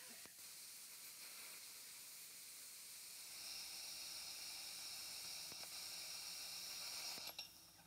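Suncoo Cut 50 plasma cutter with a PT31 torch cutting 1/4 inch steel flat stock: a steady hiss of the air and arc that gets louder about three seconds in. It cuts off near the end, followed by a few clicks.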